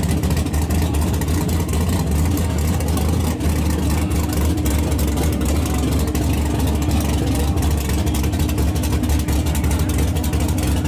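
Drag-race compact pickup truck's engine idling loudly and steadily, with a fast, even pulsing. A thin steady hum joins about four seconds in.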